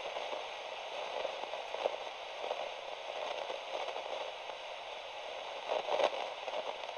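Static sound effect: a steady, band-limited hiss like an untuned radio, peppered with small crackles, with a louder burst of crackling about six seconds in.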